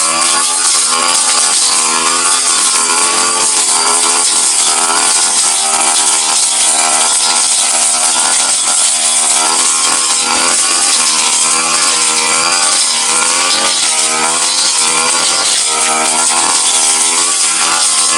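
Brush cutter engine running at high revs with a steel blade cutting grass, its pitch wavering up and down as the blade takes load.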